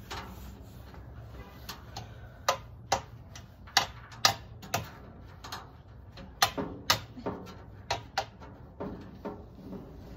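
Irregular sharp clicks and knocks from parts and tools being handled while a barbecue pit is assembled, the loudest in a cluster a few seconds in.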